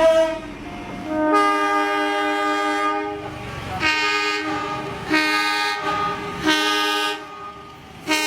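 Indonesian railway locomotive horn sounding the semboyan 35 signal, a chord of several tones. One long blast of about two seconds, then three shorter blasts of about a second each, with another beginning at the very end.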